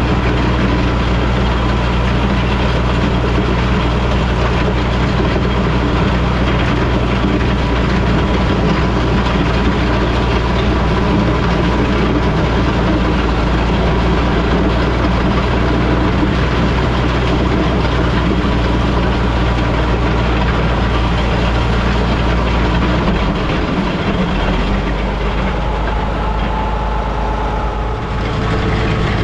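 International Harvester 460 tractor engine running steadily under a working load. About three-quarters of the way through its note drops lower for a few seconds, then comes back up near the end.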